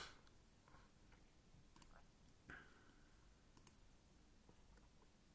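Near silence broken by a handful of faint, separate clicks from computer input while working at the desk.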